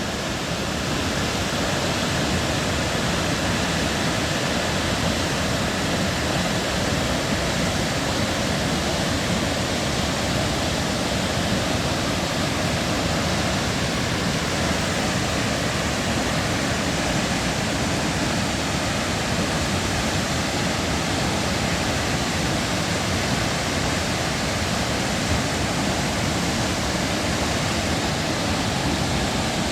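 Sanjō-no-taki waterfall: a steady, even rush of falling water that does not change.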